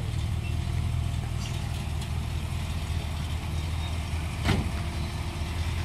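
Vintage Chevrolet pickup's engine idling as the truck creeps along at walking pace, a steady low rumble. A single brief click about four and a half seconds in.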